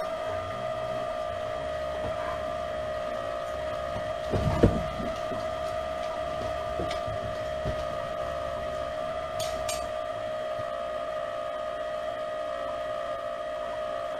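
A steady high electrical whine with fainter overtones above it. A dull thump about four and a half seconds in is the loudest sound, followed by a few light knocks and a pair of sharp clicks near ten seconds.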